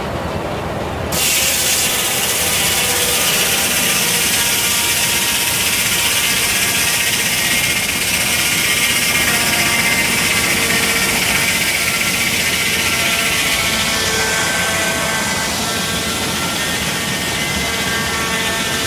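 Large circular head saw of a carriage sawmill cutting lengthwise through a log, the cut starting abruptly about a second in and running steadily, with the blade ringing in several steady tones through the noise of the cut.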